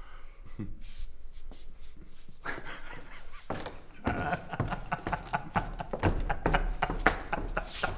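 Several men laughing and chattering indistinctly, starting about two and a half seconds in and getting busier toward the end.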